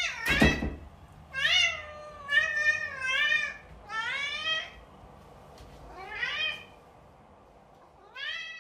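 A cat meowing repeatedly, about six short meows a second or two apart, some rising in pitch. A brief knock comes right at the start.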